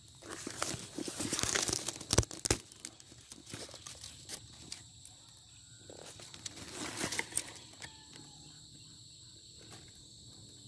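Dry grass and palm fronds of a hunting blind rustling and crackling as they are pushed aside, with a couple of sharp snaps about two seconds in and another burst of rustling around the middle.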